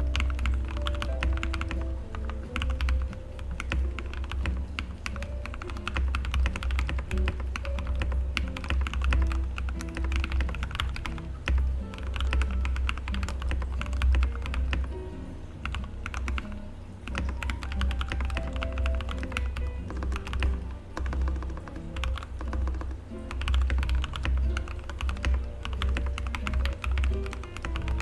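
Continuous typing on a Royal Kludge RK100 mechanical keyboard with stock red linear switches and a tape mod, a dense run of keystroke clacks. Background music with a pulsing bass line plays underneath.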